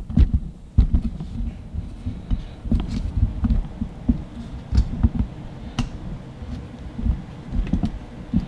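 Handling noise from a camera being set up and positioned: irregular dull thuds and bumps, with a few sharp clicks.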